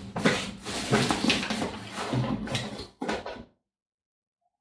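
Packaging and a shopping bag rustling, with irregular crackles, as items are packed into the bag. The sound cuts off abruptly about three and a half seconds in, leaving dead silence.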